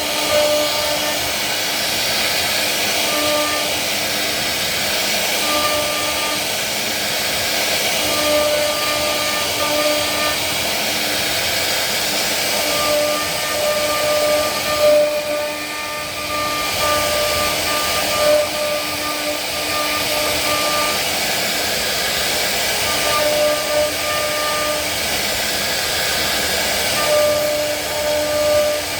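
CNC wood router spindle cutting wood: a steady hissing cutting noise with a thin, even whine that fades in and out as the load on the cutter changes.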